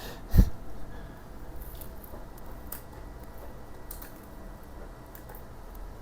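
Small PLA test squares being pried and scraped off a 3D printer's print bed: a thump about half a second in, then faint scattered clicks and scrapes.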